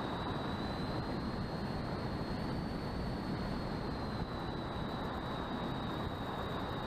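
Electric motor of an RC plane running in flight, heard as a steady high whine that drifts slightly up and back down, over heavy wind rush on the onboard camera's microphone.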